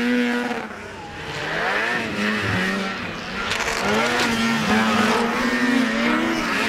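Racing snowmobiles' two-stroke engines revving hard as the sleds pass and take a jump. The pitch climbs and falls with the throttle, and several engines overlap. The sound eases off briefly about a second in, then builds again.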